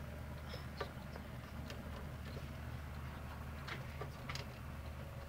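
Budgerigar making faint, scattered clicks and short chirps a few times, over a steady low hum.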